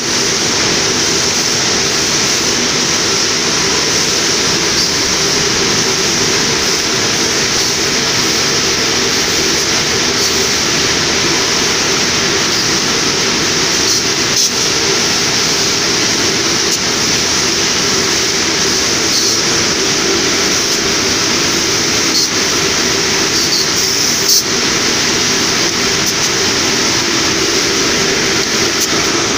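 Automatic cone-winding machine (link coner) running in a textile mill: a loud, steady, even mechanical whir from many winding heads, with a few faint clicks.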